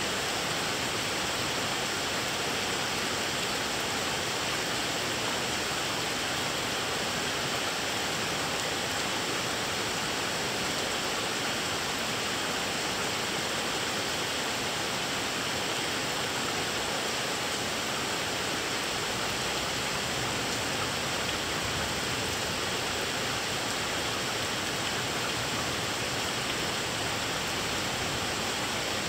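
Steady rain falling during a thunderstorm, an even hiss with no thunder or other distinct events.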